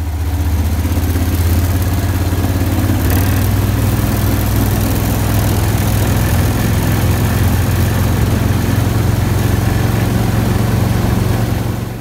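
35-horsepower Swamp Runner longtail mud motor running steadily at cruising speed, pushing a loaded boat, a low engine drone under a rush of wind and water.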